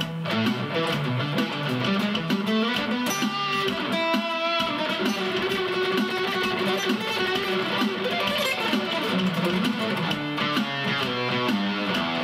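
Custom Shop acoustic guitar played through a Zoom G1 Four multi-effects pedal into a Cube-10 amp set to its JC Clean voice with a little reverb: a picked melody over chords, with notes ringing on.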